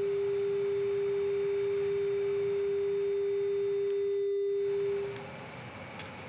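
A steady, single-pitched telephone line tone from a dropped phone call, fading out about five seconds in.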